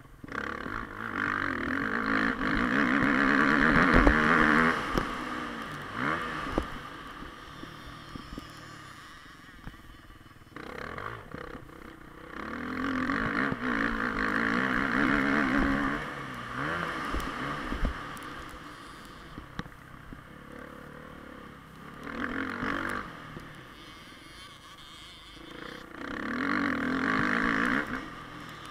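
Motocross bike engine revving hard in four long bursts as the throttle is opened along the track, falling back to a quieter, lower running between them as the rider rolls off.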